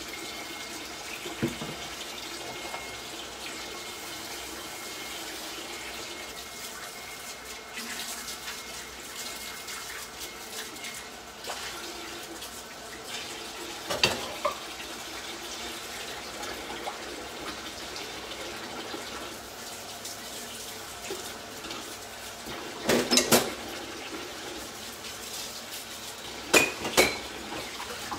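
Steady water noise, with a few sharp clinks and knocks of pots and utensils: one a little before halfway, a short cluster about four-fifths through and two more near the end.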